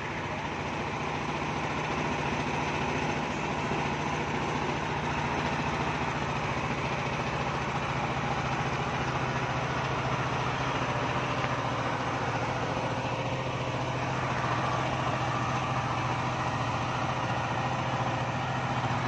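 A trailer-mounted 185 kVA diesel generator set in an enclosed canopy, running steadily at constant speed with an even low hum.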